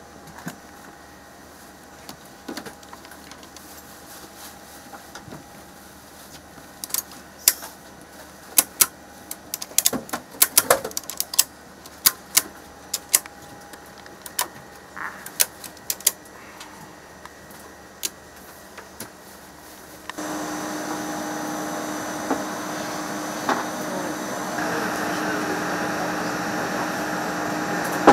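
Cargo tie-down straps being ratcheted and cinched tight around plastic animal carriers: a run of sharp metallic clicks, thickest between about 7 and 16 seconds in. About 20 seconds in, a louder steady mechanical drone with a steady hum takes over.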